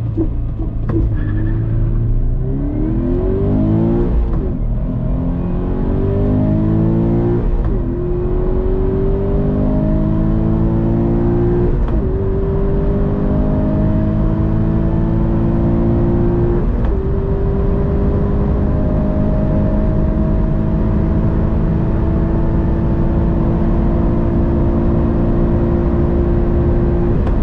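Subaru BRZ's 2.0-litre naturally aspirated flat-four boxer engine under full throttle from a standstill to about 200 km/h, heard from inside the cabin. The engine pitch climbs steeply in each low gear and drops back at four upshifts, then rises slowly in fifth with road and wind noise.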